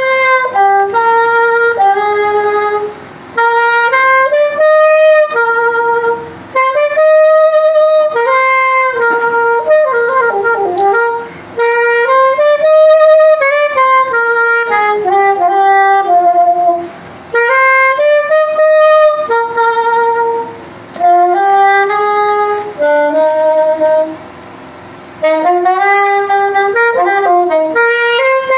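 A saxophone plays a slow hymn melody in sustained phrases, with short pauses between them for breath and a few quick runs of notes.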